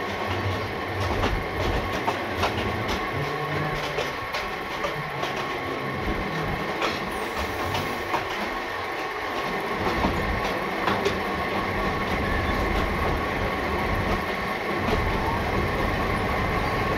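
Passenger train rolling slowly along the track, heard from the open window of its own carriage: a steady running noise with scattered clicks of wheels over rail joints and a thin steady high tone.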